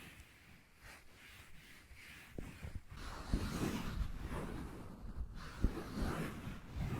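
Finger pads tapping and scratching on a surface close to the microphone: faint at first, then denser scratching with soft low taps from about three seconds in.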